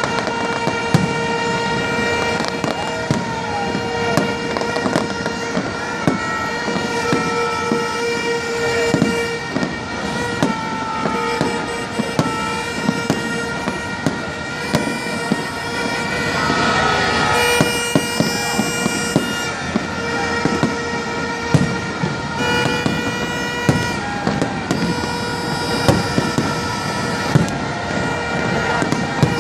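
Fireworks banging and popping in quick irregular succession. Many steady horn-like tones are held at several pitches throughout, with a brief louder crackling swell about two-thirds of the way in.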